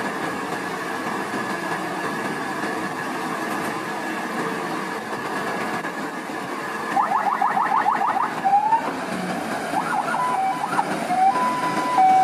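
Steady mechanical running noise of a truck-mounted knuckle boom crane, with a thin high whine. About seven seconds in, a loud electronic siren starts: a fast run of rising yelps, then alternating high-low tones.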